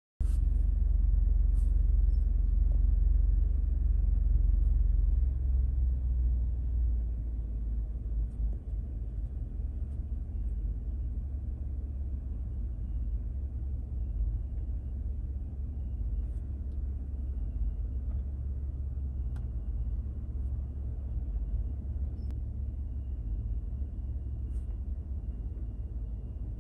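Steady low rumble in the cab of a Ford F-150 pickup, louder for the first five seconds, then settling, with a few faint clicks.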